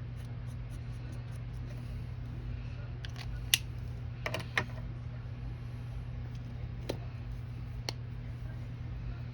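A steady low electrical hum with a handful of short, sharp clicks and taps spread through the middle, from craft supplies being handled on a desk.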